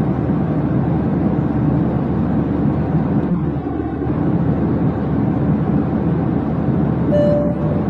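Steady low rumble of engine and air noise, dense and even throughout, with a brief high pitched tone near the end.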